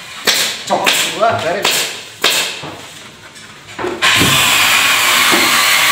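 A handheld electric power tool starts about four seconds in and then runs steadily at full speed with a faint whine. Before it starts there are a few knocks on the workbench and some voices.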